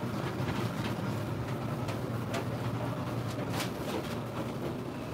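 Steady low hum of bakery kitchen machinery, with a few light clicks and knocks over it.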